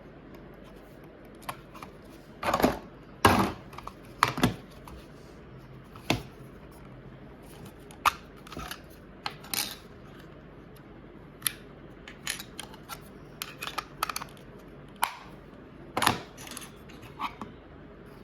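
Irregular small clicks and knocks from hands handling small hard objects, with a few brief rustling scrapes.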